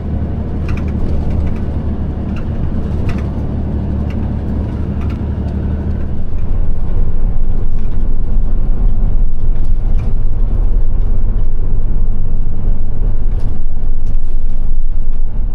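Steady low engine and road rumble as heard from inside a moving vehicle, which grows louder and deeper about six seconds in.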